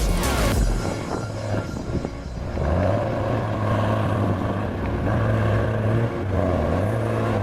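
Heavy machine's engine running steadily, with shifts in load or level a few times.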